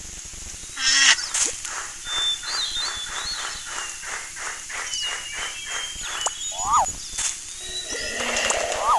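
Animal call sound effects over a bed of bird chirps: a rapid run of pulsing calls, about five a second, through the middle, with short rising-and-falling cries and high whistled chirps.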